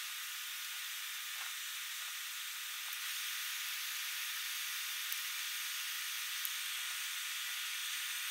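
Steady hiss with a few faint, sharp clicks scattered through it as excess component leads are snipped off a small circuit board with side cutters.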